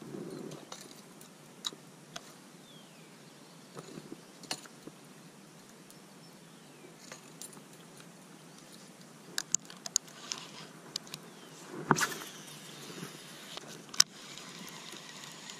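Faint, scattered metallic clicks and clinks of fishing tackle being handled: a spinnerbait and a baitcasting reel. A denser run of clicks comes about twelve seconds in, and one sharp click near the end.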